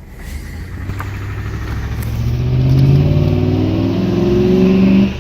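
Ford Crown Victoria Police Interceptor's 4.6-litre V8 revving up: the pitch climbs over a second or two, holds high, then drops away suddenly near the end. The engine is misfiring and knocking.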